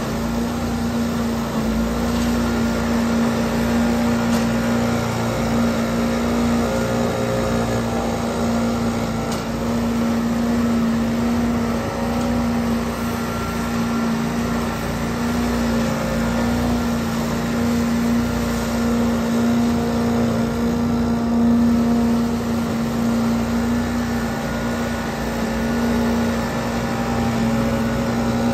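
Trailer-mounted leaf vacuum running steadily, its engine and fan making a loud, even drone as it sucks leaves up through its large hose, with a backpack leaf blower running alongside.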